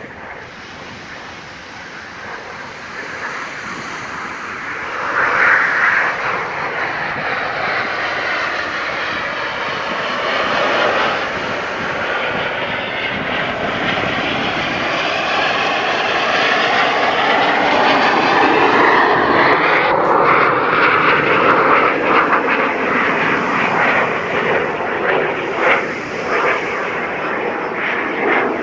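Snowbirds' CT-114 Tutor jets flying past in formation. Their jet noise swells from a few seconds in, with the pitch sweeping as the planes pass, and stays loud through the second half.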